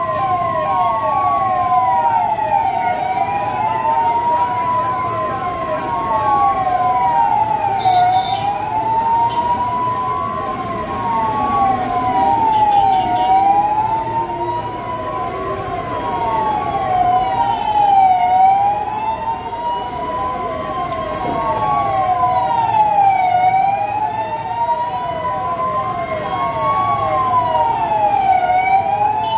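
Two vehicle sirens sounding together: one wails, rising slowly over about two seconds and dropping back, while the other warbles quickly, several cycles a second.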